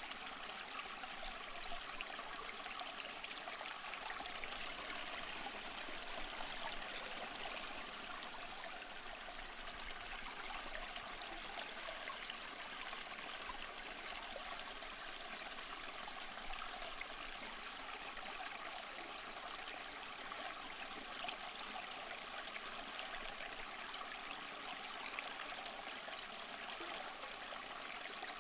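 Small stream flowing steadily over stones, a continuous trickling and babbling.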